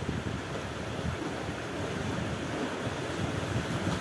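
Sea waves washing in on the shore, with wind buffeting the microphone.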